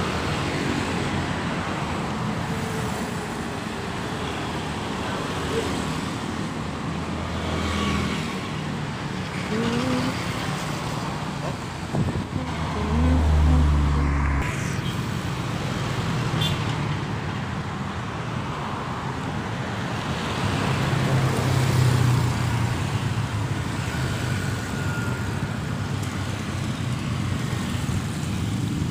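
Road traffic on a busy city road: cars, buses and motorbikes passing in a steady rush, with louder engine hum from passing vehicles about 13 and 22 seconds in.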